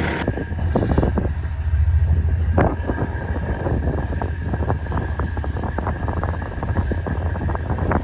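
Wind buffeting the microphone in irregular gusts over a steady low engine rumble.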